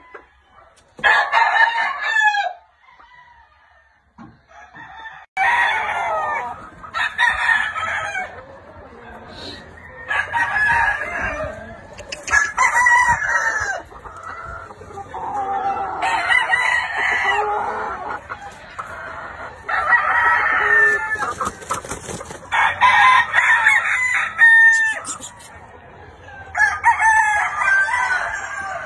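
Gamefowl roosters crowing over and over, a crow every two to four seconds and some overlapping. One crow comes about a second in, then a few quieter seconds pass before the crowing picks up again and keeps on.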